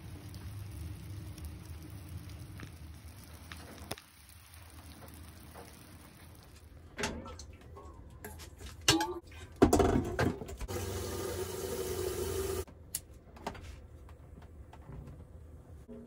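A low steady hum, then from about seven seconds in the clinks and knocks of a stainless-steel kettle being handled at a sink, and tap water running into the kettle for about three seconds before the tap shuts off sharply. A few clicks follow.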